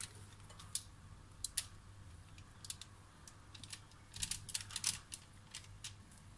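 Sponge-cake batter poured from a glass bowl onto a parchment-lined baking tray, giving light irregular clicks and ticks. The clicks come thickest about four to five seconds in.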